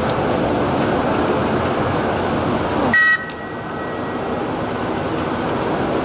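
Railway locomotives running slowly through the station with a steady rumble. About halfway through comes one short, high horn toot. The sound then drops suddenly and gradually builds back up.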